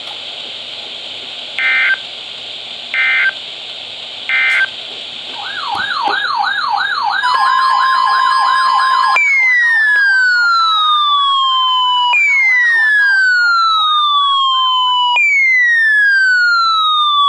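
Radio hiss with three short bursts of two-tone digital EAS header data, then an electronic siren warbling rapidly beside a steady alert tone. About nine seconds in, the siren changes to a wail that falls in pitch and restarts every three seconds.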